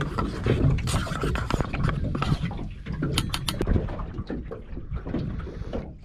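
Metal spoon stirring coffee in a metal camp mug, with clinks and scrapes against the mug, then a few high clinks a little after the middle.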